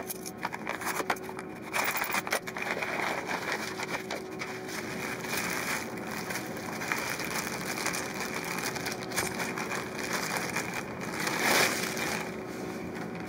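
Bubble wrap and plastic packaging crinkling and rustling as it is unwrapped by hand, with many small scattered clicks and a louder rustle near the end.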